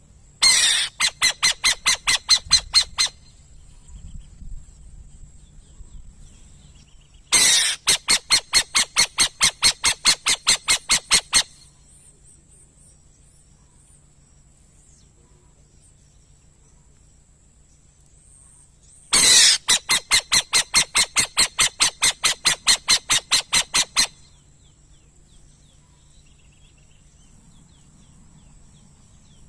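Burrowing owl giving three bouts of rapid, harsh chattering calls, each a quick run of about five sharp notes a second lasting a few seconds, with pauses between the bouts.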